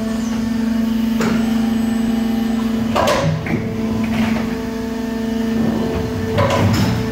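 Husky HL300 injection moulding machine running with a steady hum. Four sharp knocks with a short hiss come about a second, three, four and six seconds in.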